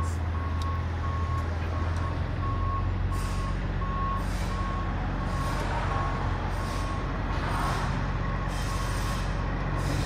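Tow truck backing up: its reversing alarm beeps at an even pace of about once a second over the truck's running engine, with short hisses in between.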